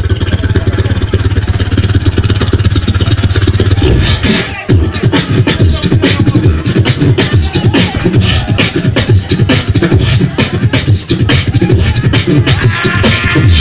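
Beatboxing through a stage PA: a steady low bass hum held for the first four seconds or so, then a fast, dense run of vocal percussion strikes over bass notes.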